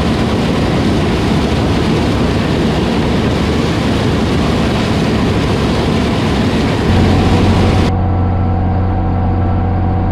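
Heavy farm machinery running, a loud steady mechanical noise. About seven seconds in, a steady low engine hum comes up, and a second later the sound changes abruptly to that steadier, duller hum.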